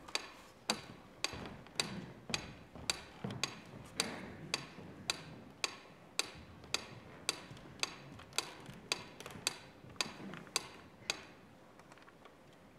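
Steady clock-like ticking, about two ticks a second, that fades out near the end.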